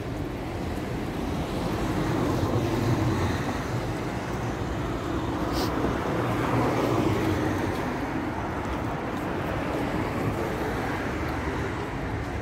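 Steady street traffic noise, swelling a little twice.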